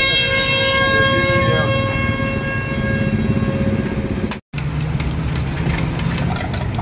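A steady, high pitched tone with several overtones fades out about three seconds in. After a brief break, metal tongs and a spoon click against a flat iron griddle over a steady low rumble.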